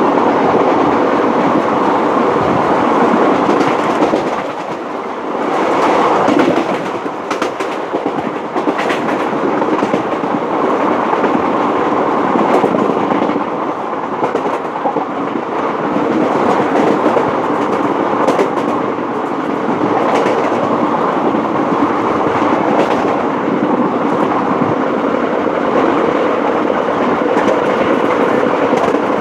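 Indian Railways Janta Express passenger coach running at speed, heard from inside the coach by an open window: a steady rumble of wheels on the rails, with a run of sharp clicks over rail joints about six to nine seconds in.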